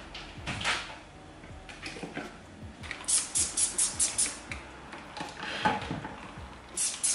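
Trigger spray bottle squirting cleaner onto a countertop: a quick run of about seven short hissing sprays, then a few more near the end, with soft handling and wiping noises in between.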